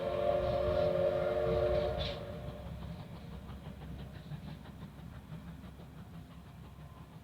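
Whistle of a JNR Class C12 steam locomotive, a held chord-like tone that stops about two seconds in, over the train's low running rumble. After it the rumble goes on with faint rail clicks, growing quieter.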